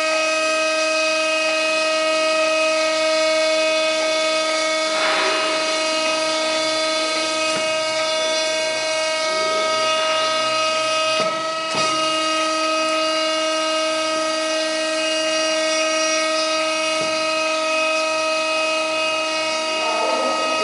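The hydraulic drive of a coil shaping press runs with a steady pitched whine while the press forms the windings of a water pump motor stator. Short bursts of hiss come about five seconds in and again near the end, with a couple of sharp clicks a little past halfway.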